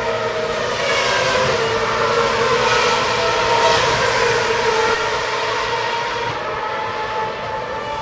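Several racing car engines running at high revs at once, their overlapping pitches shifting up and down.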